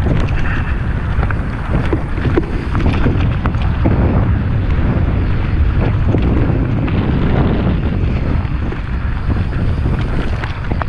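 Wind buffeting the microphone of a camera carried on a moving mountain bike, a loud steady rumble, with many small clicks and rattles from the bike running over rough trail.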